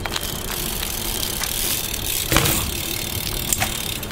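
BMX bike rolling on an asphalt street: a steady rumble of tyres on the road, with a few sharp clicks and knocks from the bike, the clearest about two seconds in and again about three and a half seconds in.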